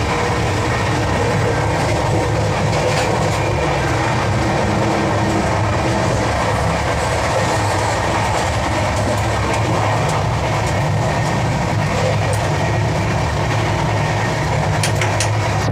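Express passenger train running along the track: a steady, loud rumble of wheels and coaches, with a few faint clicks.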